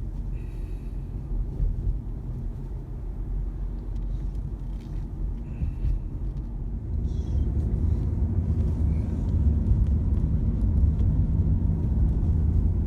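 Car being driven on country lanes: a steady low rumble of engine and tyre noise, growing louder about seven seconds in.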